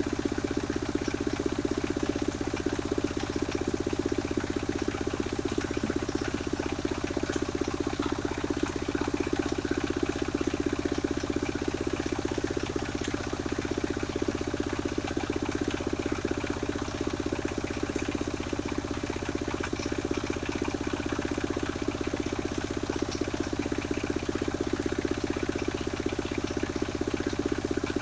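Engine of a mobile circular sawmill running steadily, with an even, unbroken hum.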